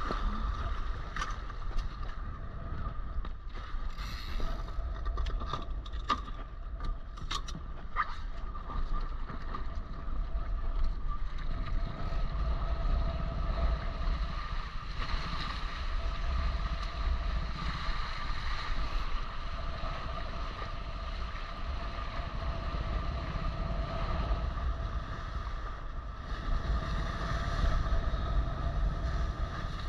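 Wind buffeting the microphone and water rushing past the hulls of a small Maricat 4.3 catamaran under sail, a steady rumbling rush with a faint steady hum over it. A few sharp ticks come in the first eight seconds or so.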